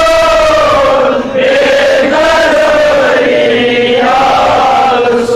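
A man singing a Kashmiri naat, a devotional song in praise of the Prophet, drawing out long held notes that waver and bend, with a short breath about a second in.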